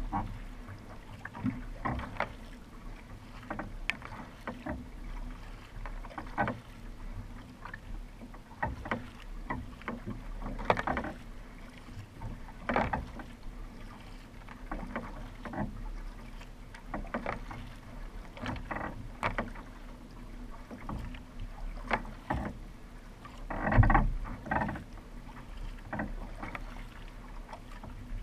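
Sprint kayak being paddled: the blades of a double-bladed paddle dip and splash into the water in repeated strokes, about one every second or two, over a steady rush of water along the hull. The biggest splash comes about two thirds of the way in.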